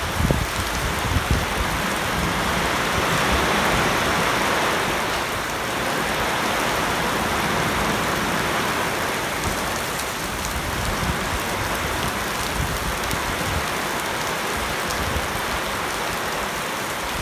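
Heavy rain pouring steadily onto standing floodwater, paving and leafy bushes: an even, unbroken hiss of rain.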